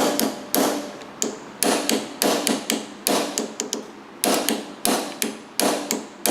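Hammer driving a small punch against metal in steady, sharp strikes, about two a second with a few lighter taps between. The punch is working back the staked edge on a door lock solenoid to free it.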